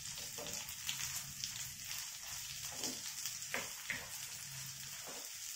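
Sliced shallots frying in hot sesame oil in a clay pot: a steady sizzle, with a wooden spatula stirring and knocking against the pot every second or so.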